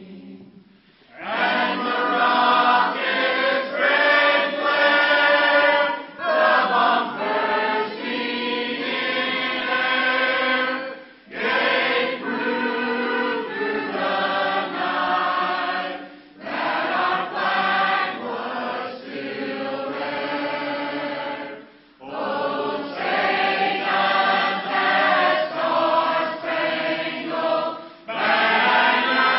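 Church choir singing together in long held phrases, with brief pauses between the phrases.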